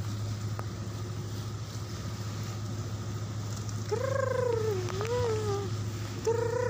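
Vessel's engine running with a steady low hum during berthing alongside a coal barge. About four seconds in, and again near the end, come two wavering, pitched squeals that rise and fall.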